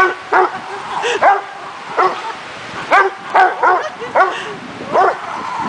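Dogs barking and yipping excitedly at play: a quick run of short, high, yelping barks, about two a second.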